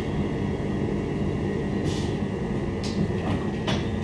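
Cabin sound of a Queensland Rail IMU 120 series electric multiple unit coming to a stop at a station: a steady low rumble with a faint steady whine. Brief hisses come about halfway through and again near the end.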